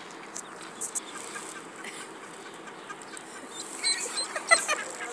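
Mallard hen and ducklings calling: a quick run of short, high calls about four seconds in, over faint background noise.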